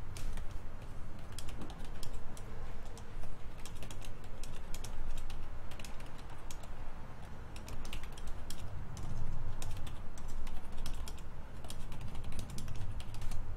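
Typing on a computer keyboard: irregular runs of quick key clicks over a low steady hum.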